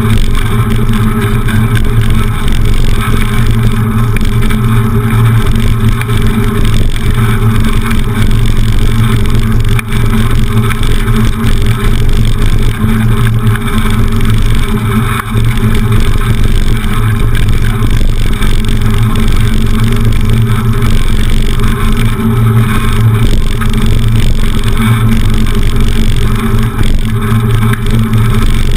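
Steady wind buffeting and road rumble on a handlebar-mounted camera as a bicycle rolls over a block-paved path, a loud constant rushing and rumbling with no letup.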